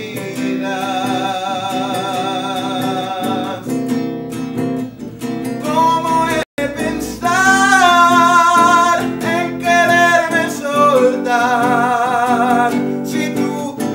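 A man singing with held, wavering notes over chords played on a classical guitar. The sound cuts out for a split second about six and a half seconds in.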